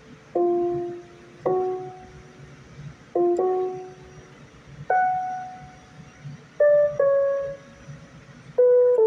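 A slow melody of single piano-like keyboard notes, each struck sharply and left to fade, about eight in all, some following each other in quick pairs.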